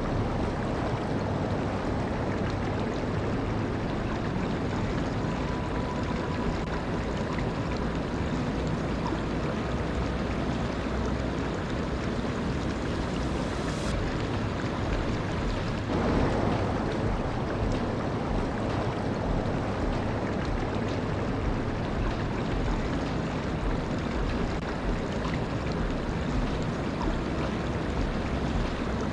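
Waterfall: a steady rush of falling water, with a slight rise in level about halfway through.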